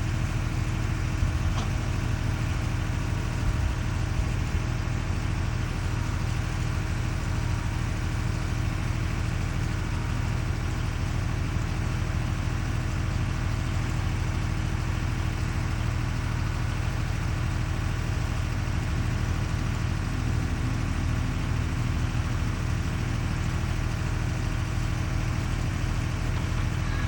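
Kubota mini excavator's diesel engine running at a steady, even speed.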